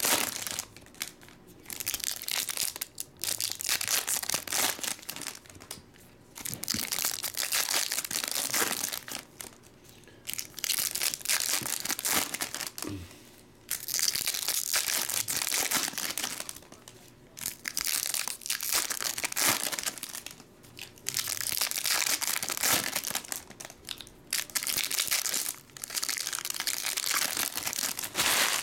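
Foil wrappers of baseball card packs being torn open and crinkled by hand, in a string of crinkly bursts each a second or a few long, with short pauses between them.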